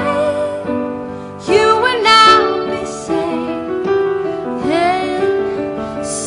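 Music: a singing voice in gliding phrases over a sustained instrumental accompaniment.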